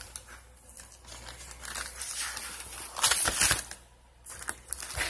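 Cardboard box and foam packing insert being handled as a car amplifier is unpacked, rustling and scraping in uneven bursts. It is loudest about three seconds in, with a short lull just before four seconds.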